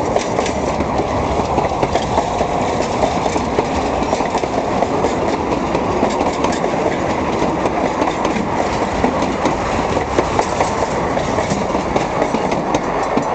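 Narrow-gauge train hauled by K-27 steam locomotive #464 rolling past a crossing: a steady rumble of wheels with scattered sharp clicks over the rail joints.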